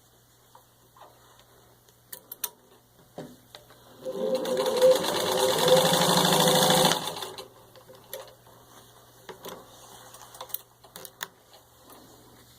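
A 1945 Singer 15-91 sewing machine, with its potted motor, spins up and stitches fast through four layers of soft leather for about three seconds, then stops abruptly. A few light clicks come before and after the run.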